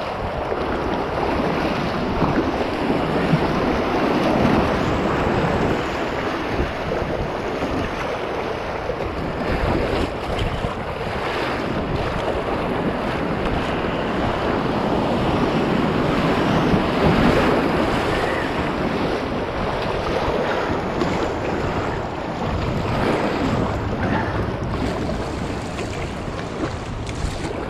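Whitewater rushing and splashing around a kayak running a river rapid, a steady loud wash, with wind noise on the microphone.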